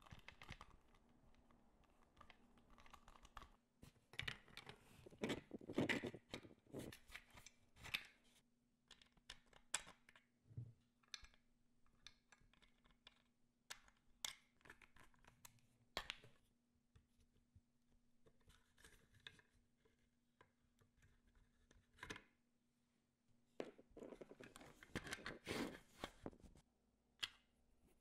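Faint handling of small 3D-printed plastic parts and M3 screws: scattered light clicks and scrapes as parts are fitted and bolts driven with a small screwdriver, with two busier spells about four to six seconds in and near the end. A faint steady hum runs underneath.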